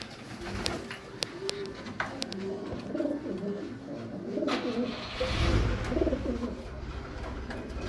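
Racing pigeons cooing in their loft: several birds at once, with overlapping low, wavering coos. There are a few sharp clicks in the first half, and a low rumble comes in about two-thirds of the way through.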